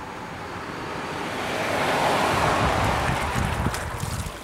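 A rush of wind- or surf-like noise that swells to a peak about two seconds in and then fades.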